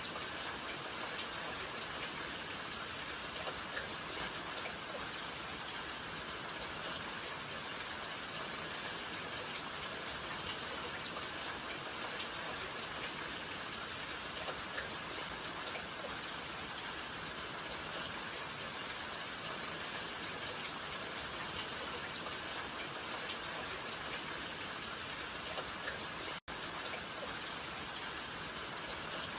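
Steady rain falling, an even hiss with fine scattered drop patter. The sound cuts out for an instant near the end, then carries on unchanged.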